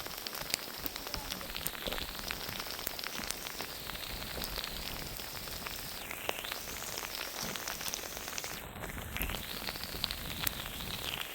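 Steady rain pattering on a surface, with many separate drop hits over an even hiss.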